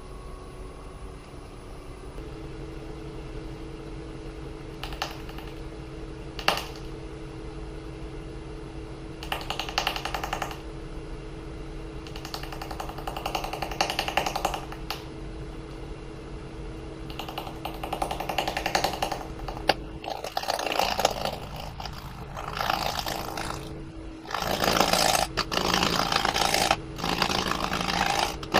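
Wood lathe running with a steady hum while a turning gouge cuts the California buckeye burl in a series of passes, each a few seconds long; the cutting becomes louder and almost continuous about two-thirds of the way through.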